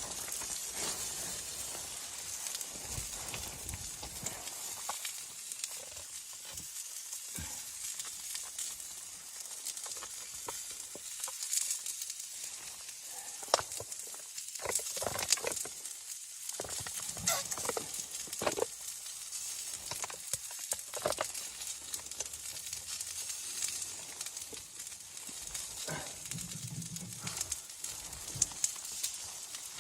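Steady sizzling hiss with scattered sharp crackles and clicks, the crackles coming thicker and louder in the middle stretch.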